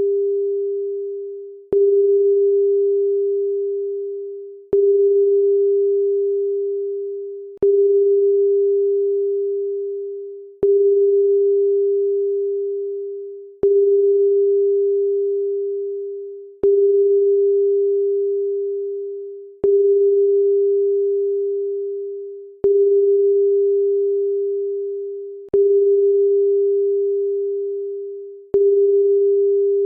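A pure electronic tone of about 400 Hz, restarting with a click roughly every three seconds and fading away over each cycle, in a steady repeating pattern.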